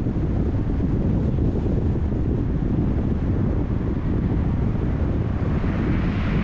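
Car driving at road speed: a steady low rumble of tyre, road and wind noise, with a higher hiss building near the end.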